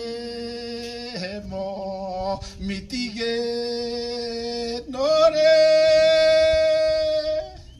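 A man singing a slow hymn-like song solo and unaccompanied, holding long steady notes with short breaks between phrases; the last held note ends near the end.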